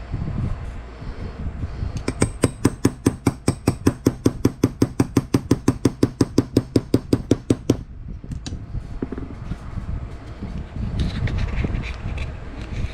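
A rapid, evenly paced run of clicks, about six or seven a second for some six seconds, then a few scattered clicks.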